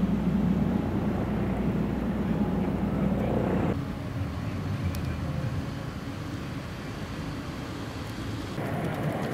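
Siemens Combino low-floor tram running slowly around a curved track loop: a steady low rumble of its motors and wheels on the rails. The sound drops sharply about four seconds in and swells again near the end.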